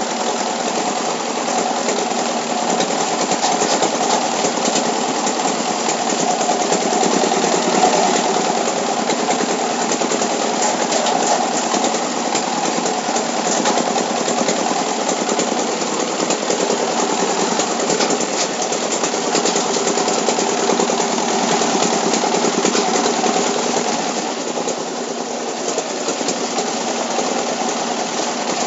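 A gibrik, a motor-driven washing machine for plastic-waste sacks, running steadily: a continuous mechanical hum with a dense, rapid clatter over it and no let-up.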